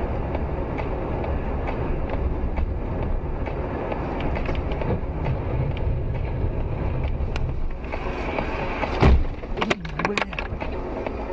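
Steady road and engine rumble of a car driving on a highway, heard from inside the cabin. About nine seconds in comes a single loud thud, followed by a few sharp clicks.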